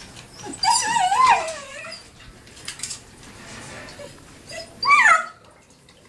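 Puppies whining: a long wavering whine about half a second in, then a short whimper falling in pitch near the end.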